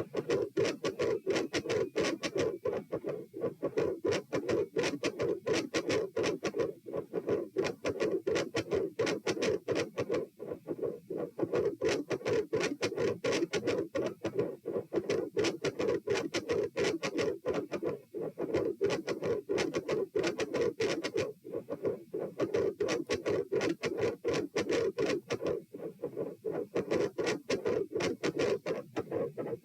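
Recorded heart sounds at about 90 beats a minute with the patient lying supine: a rapid, regular run of heart beats with a loud mid-systolic murmur filling the space between them. The murmur swells and fades in strength every several seconds, a phasic pattern.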